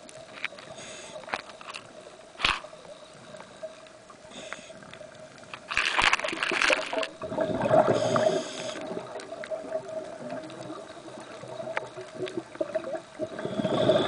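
Underwater sound of a scuba diver breathing through a regulator: a loud hiss about six seconds in, then a longer stretch of exhaled bubbles gurgling, and another breath starting near the end. Scattered sharp clicks and a faint steady hum run beneath.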